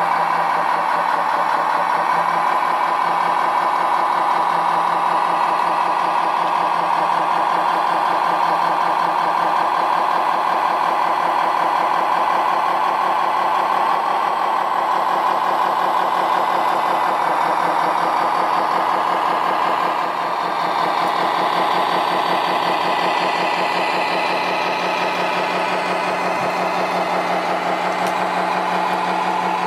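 Steady engine sound from a radio-controlled six-wheel truck crawling slowly, with a brief slight dip in level about two-thirds of the way through.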